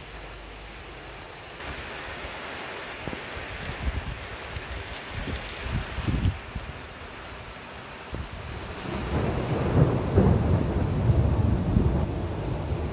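Heavy rain hissing steadily while thunder rolls in twice: a lower rumble a few seconds in, then a louder, longer roll from about nine seconds in to near the end.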